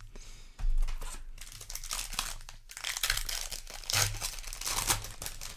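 Booster pack foil wrapper crinkling and crumpling in the hands, a continuous run of crackles with louder peaks about a second in and again around four and five seconds in.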